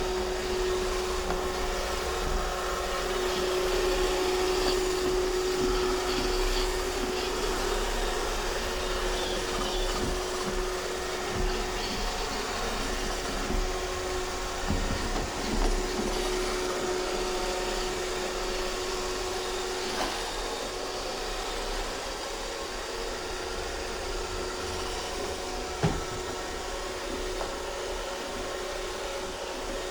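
iRobot Roomba 630 robot vacuum running, a steady whir with a steady hum-like tone, broken by a few light knocks and one sharper knock near the end.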